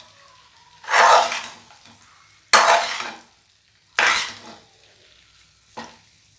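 Steel spatula stirring and tossing noodles and vegetables in a non-stick kadai while they fry. There are four strokes about a second and a half apart, each a sudden rush of scraping and sizzle that fades, and the last is small.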